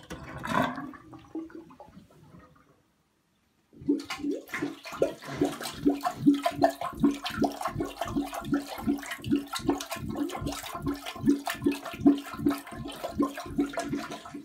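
Toilet bowl gurgling, a loud steady run of glugs at about three a second, starting after a brief silence about four seconds in. Air is being pulled up through the toilet as the bathtub drains, the sign of a drain without a working vent.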